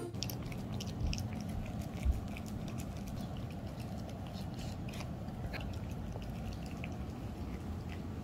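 A toy poodle puppy eating sweet potato out of a small ceramic bowl: steady chewing and licking, with many small clicks scattered throughout.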